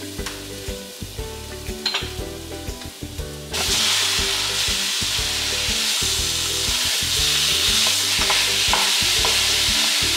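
Onions frying quietly in hot olive oil. About three and a half seconds in, ground beef goes into the pan and a loud, steady sizzle starts suddenly, with a spatula scraping and stirring the meat.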